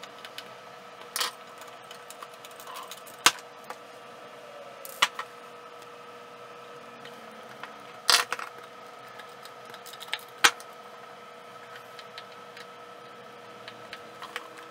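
Magnetic screwdriver driving screws into a small form factor power supply's bracket: about half a dozen sharp metallic clicks and taps scattered through, over a steady faint hum.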